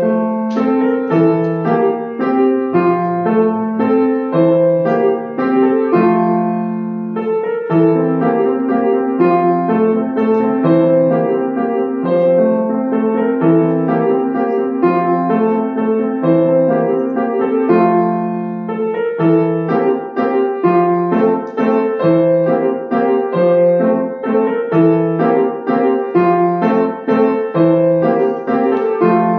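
Grand piano played solo: a steady-paced piece with a melody over repeated low notes.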